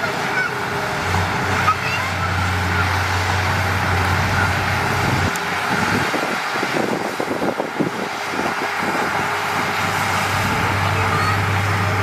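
Diesel engine of heavy earthmoving equipment running, with a steady low drone under a dense rumble. The drone drops away about five seconds in and comes back near the end.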